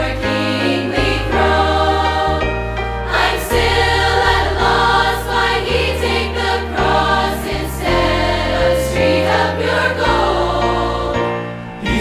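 Background music: a Christian gospel song sung by a choir over instrumental accompaniment, with sustained notes over a changing bass line.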